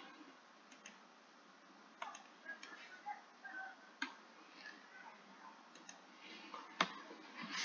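Computer mouse clicking a few times as waypoints are added to a route on a map, single sharp clicks a second or two apart over quiet room tone.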